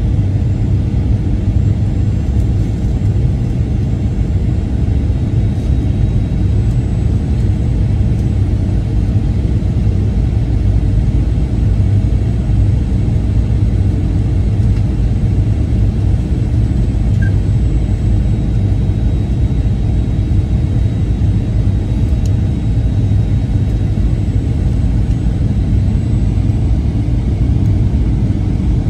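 Cabin noise inside a Boeing 737-900ER in flight: a steady, loud, low rumble of the engines and airflow that does not change, with a faint steady high whine above it.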